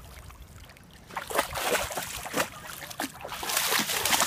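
A puppy splashing in shallow water, pawing and stepping at the small waves: a run of quick splashes that starts about a second in.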